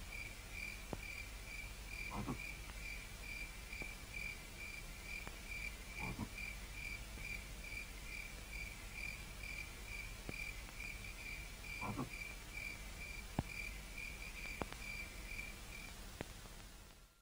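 Faint night ambience: a cricket chirping in a steady, even pulse, with three short low croaks and a few faint clicks. The chirping stops about a second before the end.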